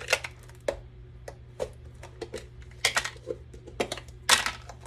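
Small disassembled parts (screws, washers and bits of plastic) clicking and clattering irregularly as they are handled and sorted, with a few louder clacks about three seconds in and near the end.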